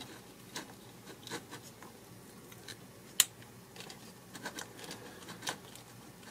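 A small screwdriver scraping and clicking as it turns a small screw into the top mount of an RC truck's shock, with faint irregular clicks and one sharper click about three seconds in.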